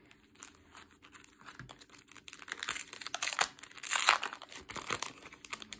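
Clear plastic packaging sleeves crinkling as they are handled, with dense crackles that grow busier and louder about halfway through.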